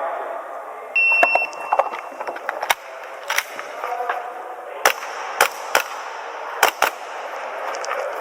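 A shot timer beeps once about a second in, starting the stage, then an airsoft pistol fires a string of sharp shots at uneven intervals, about seven clear ones, over background chatter.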